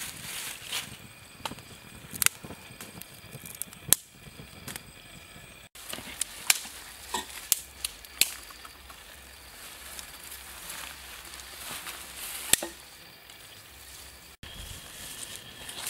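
Dry sticks and twigs being snapped and cut with a knife: a string of sharp cracks at uneven intervals.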